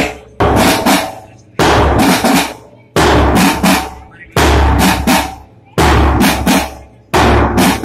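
Marching drums playing a parade cadence: a heavy bass drum stroke with a quick group of snare beats, the same pattern repeating evenly about every one and a half seconds.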